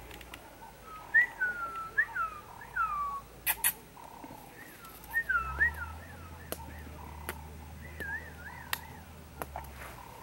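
Short whistled notes, each sliding down in pitch, in several runs, then a quicker wavering run of notes near the end. A sharp click sounds about three and a half seconds in.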